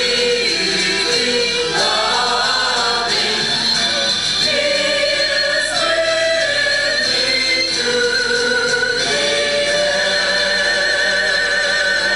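Church choir of mixed men's and women's voices singing together, holding long notes with a slight vibrato.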